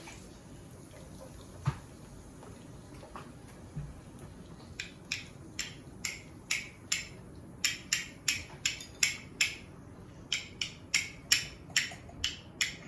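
A run of short, sharp taps at about two a second, starting about five seconds in after a couple of soft knocks. These fit a plastic toy-volcano container being knocked and emptied of its leftover baking-soda sludge.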